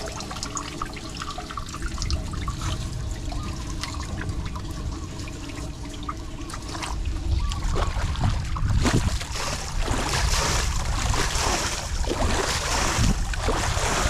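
Floodwater trickling and running down into a street storm drain, getting louder and rougher from about halfway in.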